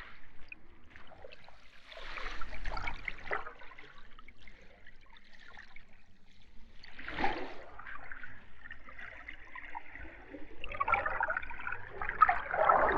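Underwater ambience heard as if submerged: a steady muffled wash with surges of bubbling water, about a second in, near the middle, and a longer, louder bubbling stretch near the end.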